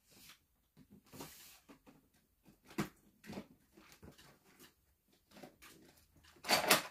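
Medicine bottles and pill packaging being handled: scattered small clicks and rustles, a short papery hiss about a second in, and a louder burst of clattering clicks near the end.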